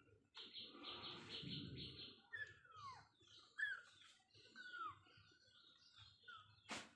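Kittens mewing faintly: about four short, high calls, each falling in pitch, the clearest about two and a half seconds in. A faint pulsing sound comes before them, in the first two seconds.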